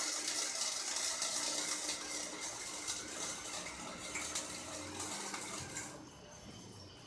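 Electric arc welding on a tubular trike frame: the arc gives a steady crackling hiss that stops about six seconds in.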